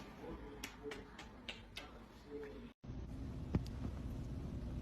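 Quiet room sounds: a few faint clicks and soft short murmurs. A brief dropout to silence comes a little past halfway, followed by a steady low hum with one click.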